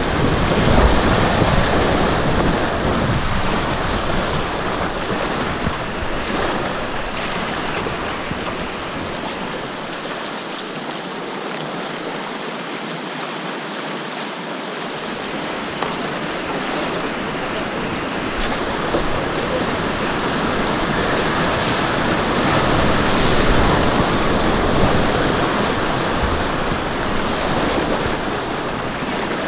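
River rapids rushing and splashing around a whitewater kayak, with wind buffeting the microphone. The rush is loudest near the start and again about two-thirds of the way through, and the low rumble drops away for a few seconds in the middle.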